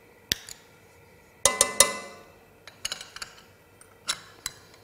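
Metal spoon clinking and scraping against a small ceramic bowl while scooping out soft butter: scattered sharp clinks, the loudest a quick run of three ringing ones about a second and a half in.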